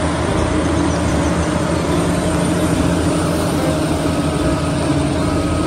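Diesel engine of a Cat motor grader running as its front snow plow pushes through deep snow, under a steady rushing noise.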